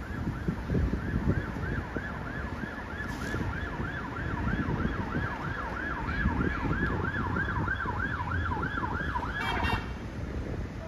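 Garda (Irish police) car siren on a fast yelp, about four sweeps a second, growing louder as it comes closer and cutting off suddenly near the end. Wind rumble on the microphone underneath.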